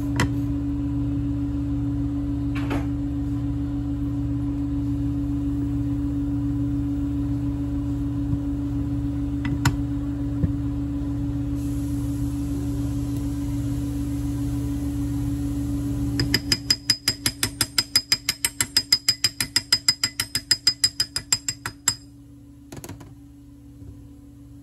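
A steady low hum. About two-thirds of the way through it gives way to a rapid run of ratchet-like metallic clicks, about five a second for some five seconds, as the transmission gears are worked into the engine case by hand.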